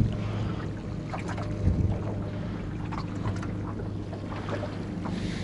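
Boat's motor running steadily with a low hum, over a haze of wind and water noise; a couple of short knocks in the first two seconds.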